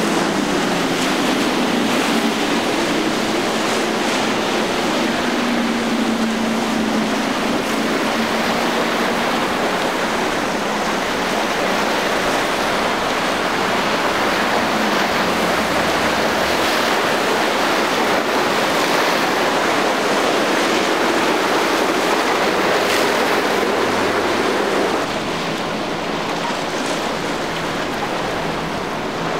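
Boat engines running amid the wash of waves, a steady rushing noise with an engine hum that shifts in pitch now and then. The noise drops a little about 25 seconds in.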